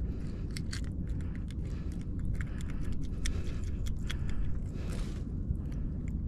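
Irregular small clicks and light rattles as hands work a hook out of a panfish and handle the hook rig, over a steady low rumble.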